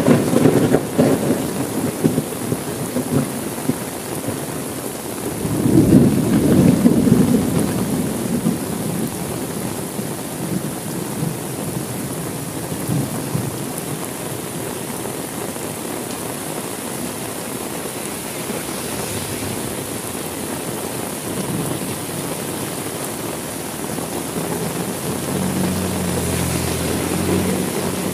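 Heavy rain falling steadily in a thunderstorm. A thunderclap dies away at the start, and another roll of thunder swells and fades about six seconds in. A low steady hum joins near the end.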